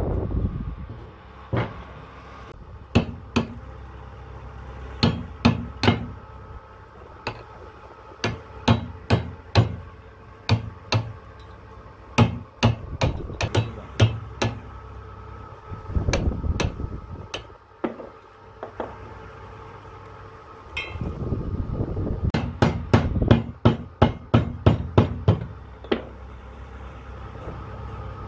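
Hammer striking a steel punch on a truck starter motor armature held in a vise, working the commutator along the armature shaft: sharp metal-on-metal blows in quick runs with short pauses between. A low rumble rises in the background twice.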